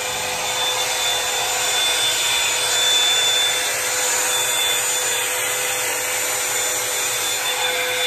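Hot Tools One Step hot-air brush running, its fan motor blowing with a steady whine as the brush is worked through the hair.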